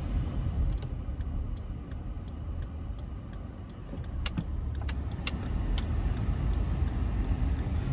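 Car driving slowly, heard from inside the cabin: a steady low road and engine rumble with scattered light clicks and rattles.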